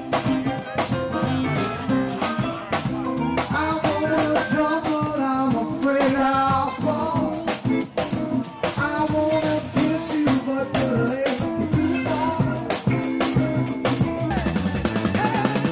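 Live rock band playing loudly, with a drum kit and an electric guitar.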